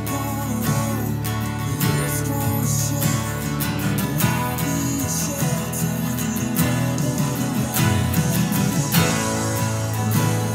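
Two acoustic guitars strummed together, playing a steady country-style accompaniment.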